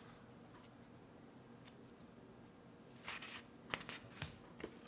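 Quiet room tone, then a few faint rustles and taps from about three seconds in: paper flash cards being handled and swapped.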